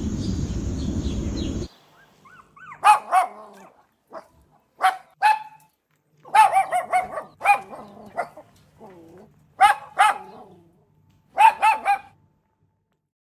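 A dog barking in short groups of one to three barks, some pitched fairly high. They follow a steady noisy stretch that cuts off abruptly just under two seconds in.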